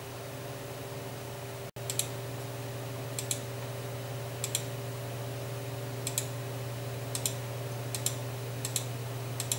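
Computer mouse button clicking about eight times at irregular intervals, each a quick press-and-release double click, over a steady low electrical hum.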